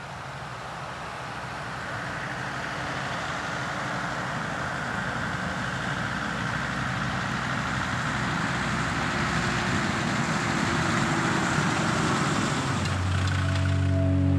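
Land Rover Defender approaching with its engine running, the sound growing steadily louder as it nears. Steady music tones come in near the end.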